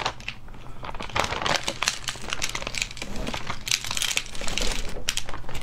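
Thin plastic bag crinkling and rustling in irregular bursts as it is squeezed and shaken to empty cooked sea snails in sauce onto a plate.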